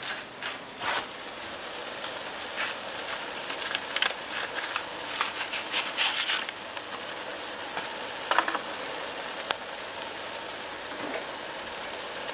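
Ground beef sizzling steadily in a frying pan, with scattered crackles. About halfway through, a paper packet rustles as dry onion soup mix is poured over the meat.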